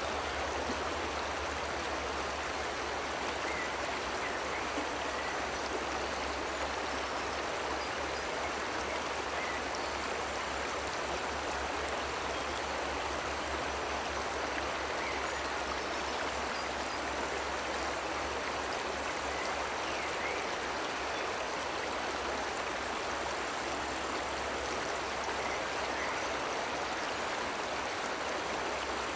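Steady rushing of a cascading waterfall: an even, unbroken hiss of falling water with a low rumble underneath.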